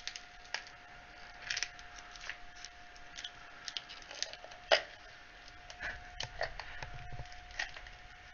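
Small clicks and plastic handling noises from a plastic tub of PVA glue being gripped and its lid worked by hand, with one sharper click a little before five seconds in. A faint steady tone sits underneath.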